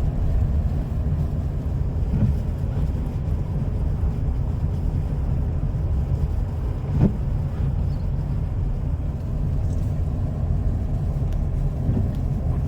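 Steady low rumble of a car's tyres and engine heard from inside the cabin while driving on a snow-covered highway, with one short knock about seven seconds in.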